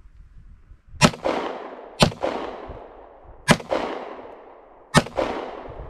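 Four 9mm shots from a Taurus PT1911 pistol, spaced one to one and a half seconds apart, each followed by a long fading echo.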